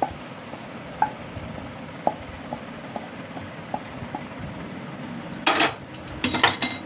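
Metal spoon and steel cookware scraping and clinking as a thick cooked coconut-and-sugar mixture is turned out of the pan onto a steel plate. Light taps come about every half second at first, then a louder metal-on-metal clatter near the end.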